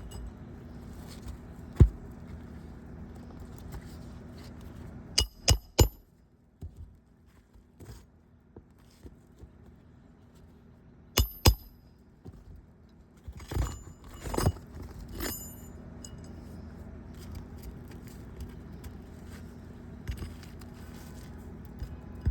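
Metal hand tools clinking and knocking during asphalt shingle repair work: sharp ringing knocks in small groups of two or three, with a louder cluster about two-thirds of the way through, over a steady background noise.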